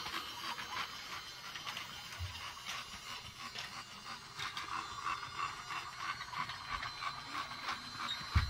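Battery-powered toy train running on plastic track: a steady, rapid clicking and whirring of its small motor and gears. There is a soft low thump about two seconds in and a louder one near the end.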